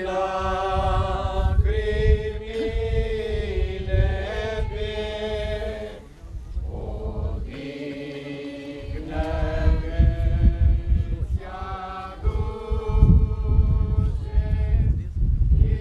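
A slow Romanian funeral hymn sung in long held phrases, with a short break about six seconds in. A low rumble runs underneath.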